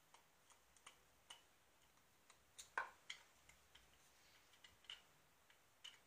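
Faint, irregular clicks and taps of a single-coil guitar pickup and its plastic cover being handled and worked loose, the loudest near the middle.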